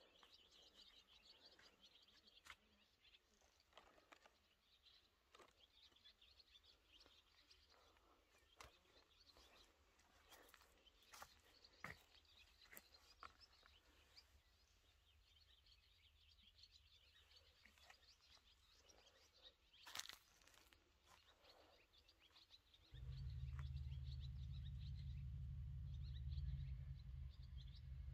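Quiet outdoor ambience with faint birds chirping and scattered soft clicks. About 23 seconds in, a steady low rumble starts, much louder than the rest.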